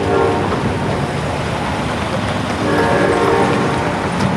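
Diesel locomotive's air horn sounding a multi-note chord in long blasts over a steady rumble: one blast ends just after the start, and the next begins near the three-second mark.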